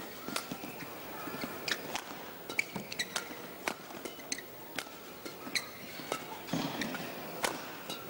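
Badminton rally: sharp racket strikes on the shuttlecock about once a second, with shoe squeaks and footfalls on the court.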